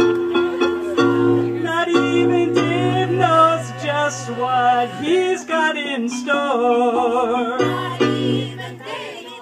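A small group of amateur voices singing a song together to digital piano chords. The piano plays alone at first and the singing joins about a second and a half in, easing off near the end.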